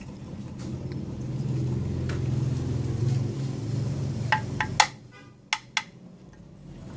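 A few sharp metallic clicks and clacks from the circular saw's metal chip-collector cover being handled, the loudest just before five seconds in. Under them a low engine hum swells, then drops away at about the same moment.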